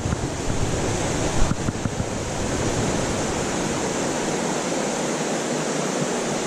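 Steady rushing water of a small mountain stream, close by, with a few low knocks in the first couple of seconds.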